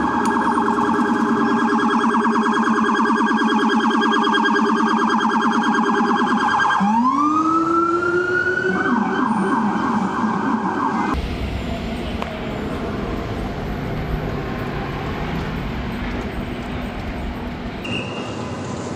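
Electronic emergency-vehicle siren sounding a fast warbling yelp, sweeping up into a rising wail about seven seconds in, then warbling fast again before cutting off about eleven seconds in. Street traffic noise follows.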